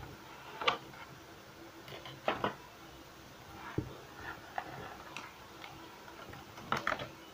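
Clear plastic blister packaging crinkling and clicking as it is slid out of a cardboard box and handled. Short sharp crackles come about a second in, twice around two and a half seconds, and in a cluster near the end.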